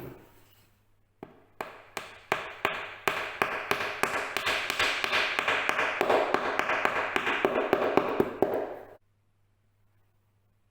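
Hammer tapping a glue-dipped wooden dowel plug into a stripped screw hole in a door jamb: a few spaced taps about a second in, then rapid, steady tapping that stops suddenly near the end.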